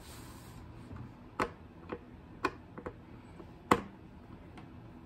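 Metal screwdriver clicking and tapping against a plastic toy Morpher while its screws are being undone: about six scattered sharp clicks, the loudest a little before four seconds in.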